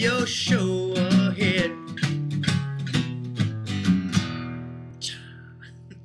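Acoustic guitar strummed, with a voice holding a wavering sung note over it in the first second or two. The strumming stops about four seconds in and the last chord rings out and fades, with a short breathy sound about a second later.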